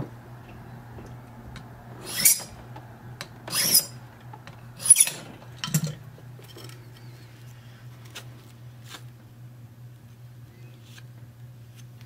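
A file rasping across a brass impressioning key in a few short strokes, taking down the first cut position. A steady low hum runs underneath.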